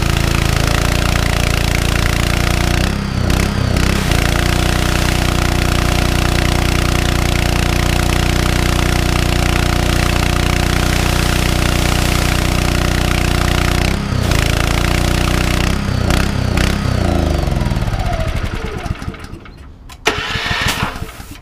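Honda GX160 single-cylinder four-stroke petrol engine running steadily, driving a belt-driven pressure-washer pump with the lance spraying water. Near the end the engine is shut off and its pitch falls as it winds down to a stop, followed by a brief hiss.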